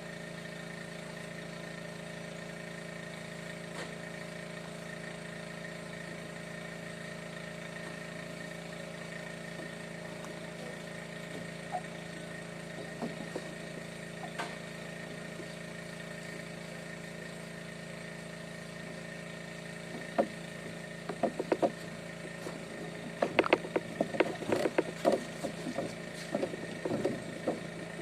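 A motor vehicle's engine running steadily with an even hum. From about twenty seconds in, a run of sharp knocks and rattles sounds over it, louder than the engine.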